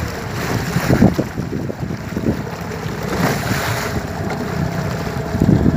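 Small open boat under way on a choppy river: wind buffeting the microphone and water splashing against the hull, over a faint steady motor hum.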